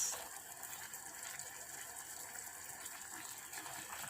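Steady, faint hiss of macaroni and sauce cooking in a pan on a gas stove.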